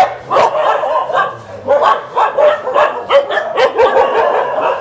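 Many kennelled dogs barking at once, a steady din of overlapping barks and yips with no pause.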